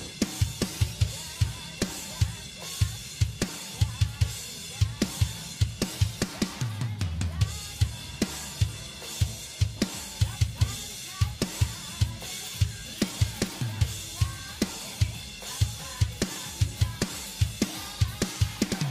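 Background music with a steady drum beat: repeated low kick-drum thumps and sharper strikes throughout.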